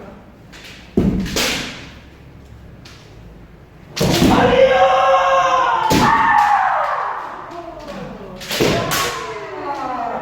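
Kendo practice: loud, drawn-out kiai shouts from the fencers, with sharp cracks of bamboo shinai strikes and stamping footwork on a wooden dojo floor. There is a sharp strike about a second in. A long held shout comes from about four seconds, then a falling one, then another strike with a shout near the end.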